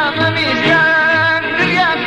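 Middle Eastern song: a wavering, ornamented sung melody over instrumental backing with a steady low bass line.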